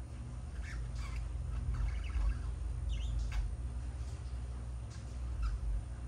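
Pet budgerigars chirping and chattering in short, scattered calls, over a steady low hum.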